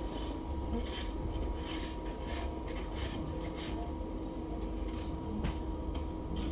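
Double-decker bus in motion heard from inside: a steady low rumble from the running gear and road, a constant steady hum, and frequent light rattles.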